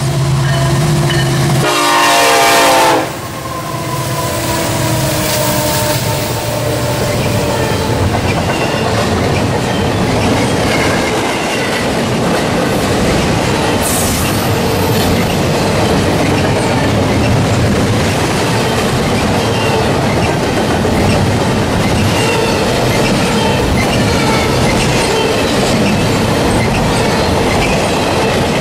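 Norfolk Southern freight locomotive led by the Virginian heritage unit sounding its multi-note horn in a long blast that cuts off about three seconds in. The diesel engines then pass, followed by the steady rolling rumble and clickety-clack of double-stack intermodal well cars going by, with faint wheel squeal now and then.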